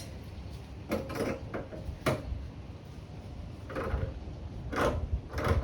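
Irregular clicks and clunks of tools and small parts being handled, about six separate knocks over a few seconds.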